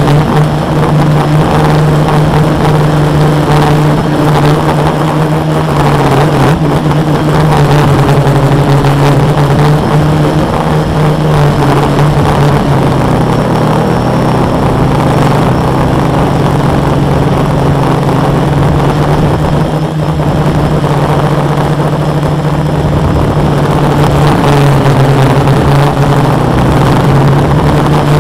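Four Multistar 2212 920kv brushless motors of a 450 quadcopter spinning 10x4.5 props in hover, heard very close from a camera mounted on the frame. It is a loud, steady drone whose upper tones waver slightly up and down as the throttle is adjusted.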